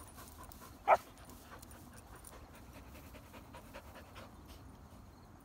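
A dog panting as it runs, with one short, sharp sound about a second in.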